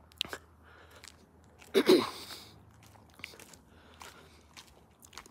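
Soft, irregular crunches and clicks of footsteps on a leaf-strewn sidewalk, with a short wordless vocal sound from a man, falling in pitch, about two seconds in.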